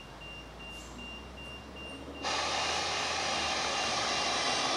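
Handheld EMF meter beeping in rapid, evenly spaced high beeps. About two seconds in, a sudden loud, steady rushing noise cuts in and drowns the beeps out.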